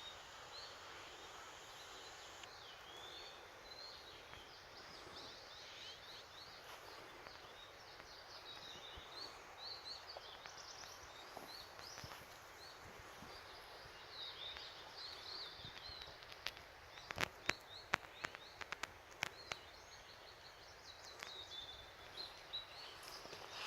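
Wild birds singing and chirping, many short high calls overlapping over a steady faint hiss. A run of sharp clicks comes about two-thirds of the way through.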